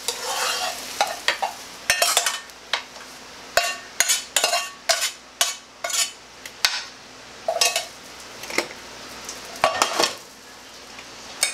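A utensil scraping and tapping in a nonstick frying pan as scrambled egg is scooped out onto a plate: a string of short, irregular scrapes and taps.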